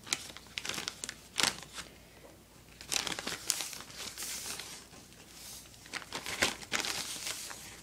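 Thin plastic zip-top bag crinkling as a hand rummages inside it, in irregular bursts of rustling.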